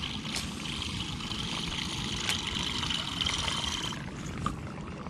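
Abu Garcia Pro Max baitcasting reel being cranked to retrieve a lure: a faint steady whir that stops about four seconds in. Under it runs a low steady rumble, with a few faint ticks.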